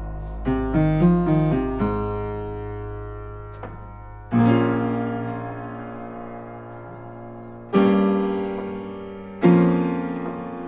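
Piano playing an instrumental passage: a quick run of short notes in the first two seconds, then three chords struck a few seconds apart, each left to ring and fade.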